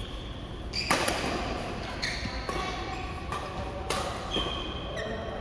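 Badminton rally: rackets striking the shuttlecock about six times, sharp hits roughly half a second to a second apart, the first and loudest about a second in. Short squeaks of court shoes on the mat come between the hits.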